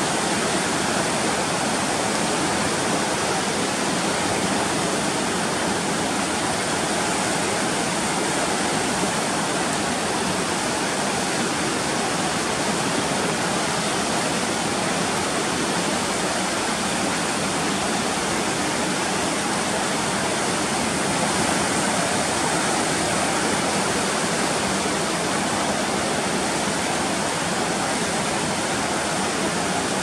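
Koshi River in high flood, at danger level, rushing past the barrage's concrete piers: a steady, even rush of turbulent water that does not change.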